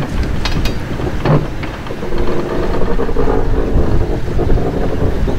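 Vulcan Foundry 0-4-0 diesel shunting locomotive running at low power as it moves its coaches slowly into the shed. A few sharp clanks of wheels and couplings come in the first second. The engine note steadies and grows a little louder about two seconds in.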